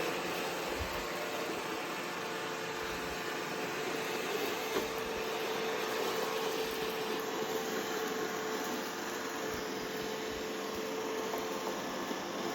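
iRobot Roomba i3+ robot vacuum running, a steady whir with a constant hum.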